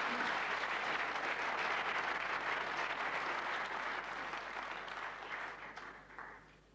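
Audience applauding at the end of a player's break, the clapping dying away over the last two seconds or so.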